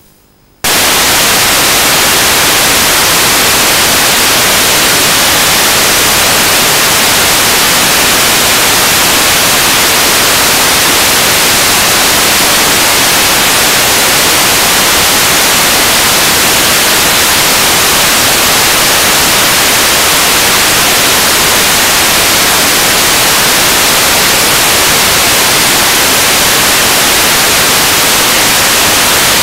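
Loud, even hiss of static from an analog FPV video receiver that has lost the drone's video signal. It cuts in abruptly about half a second in.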